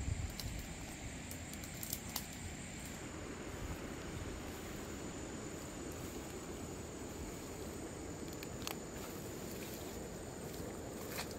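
Brush rustling as someone pushes through tall grass and shrubs, with a few sharp snaps of twigs or stems, over a low rumble of wind on the microphone and a thin, steady high insect drone.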